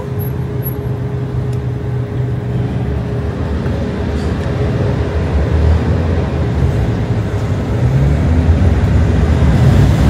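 Road traffic on a city street: the low rumble of a motor vehicle's engine nearby, growing louder toward the end.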